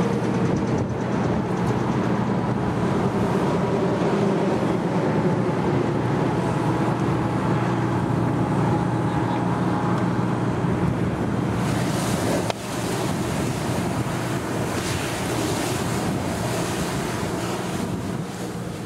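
Steady low drone of a fire engine's engine running at the scene under a loud rushing hiss, which drops slightly about twelve seconds in.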